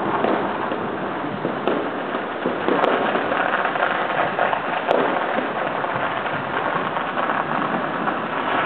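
Firecrackers going off all around at once, a dense continuous crackle, with a few sharper bangs standing out about two, three and five seconds in.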